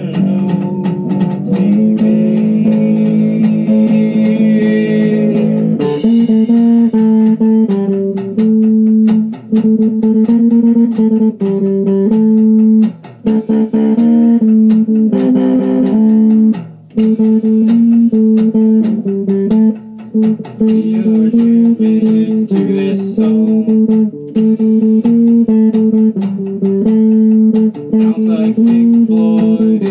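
Guitar playing a loud, repeating riff of held notes, with drums hitting steadily underneath in a jam.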